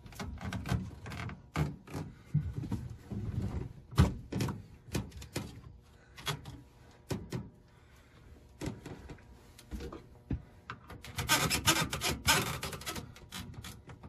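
Scattered knocks, clicks and rubbing as an old built-in RV microwave is handled and worked loose inside its wooden cabinet, busier and louder for a couple of seconds about eleven seconds in.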